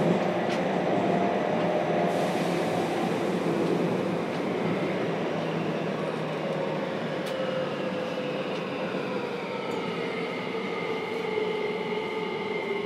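Running noise inside the motor car of a JR Kyushu 303 series electric train: steady wheel-and-rail rumble with the whine of the traction motors. In the second half the motor tones glide slowly down in pitch as the train slows, and there is one sharp click about seven seconds in.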